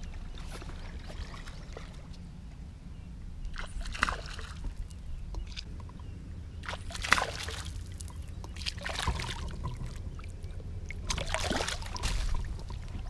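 Water sloshing and splashing around a landing net held down in lake water, in about four bursts, over a steady low rumble.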